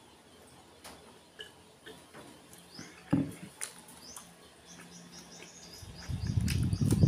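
Close-miked eating sounds: a glass jar knocked down onto a wooden board about three seconds in, small wet clicks of fingers and mouth, then loud chewing that starts near the end.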